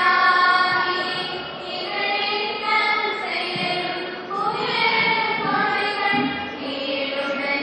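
A choir singing a hymn together, several voices on long held, gliding notes in a chant-like melody.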